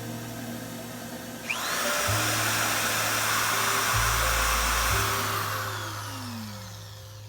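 An electric power tool's motor spins up with a rising whine about a second and a half in, runs at speed for a few seconds, then winds down with a falling tone, over background music with a steady bass line.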